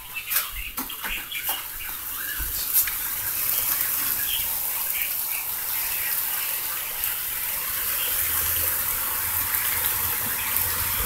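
Heavy thunderstorm rain pouring down in a steady hiss, with a few sharp knocks in the first few seconds.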